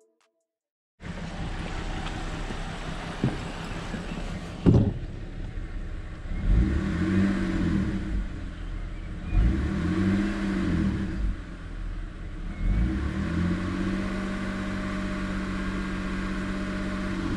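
Freshly rebuilt BMW N52 inline-six running at idle, with one sharp thump about five seconds in. The engine is then revved up and down three times and held at a steady raised speed: the varied-rpm warm-up of a rebuilt engine's break-in.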